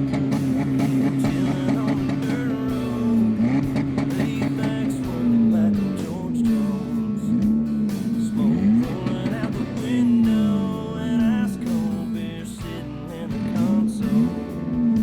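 Worn-out car engine revved up and down again and again, its pitch rising and falling every second or two. It is being held on the gas to keep it from stalling. Guitar music with singing plays along.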